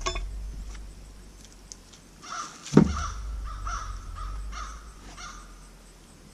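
A bird calling about six times in quick succession, with a heavy thump among the first calls that is the loudest sound.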